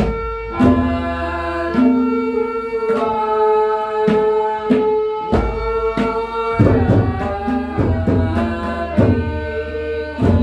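Indian-style music: tabla strokes over held, steady melodic notes, with a busier run of changing notes in the middle.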